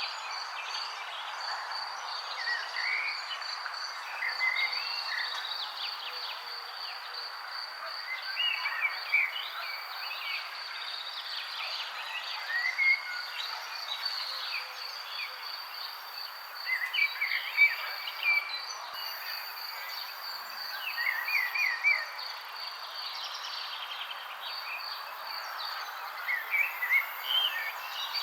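Birds chirping in short, scattered bursts over a steady, high-pitched insect trill and an even background hiss. The chirps come loudest about two-thirds of the way through.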